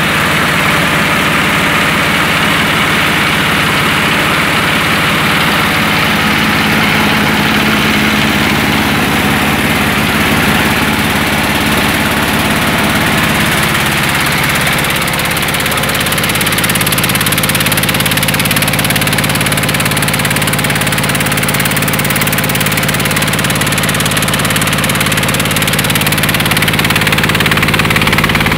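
Engine-driven mobile rice huller running steadily while husking paddy, a loud continuous mechanical drone with a strong hiss over it. The engine note shifts about halfway through.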